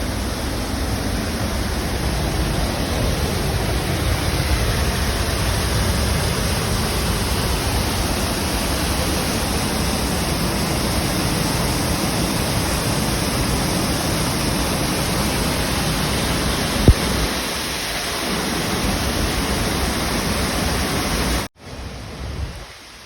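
Loud, steady rushing of a waterfall, with a single sharp click about 17 seconds in. It cuts off abruptly near the end.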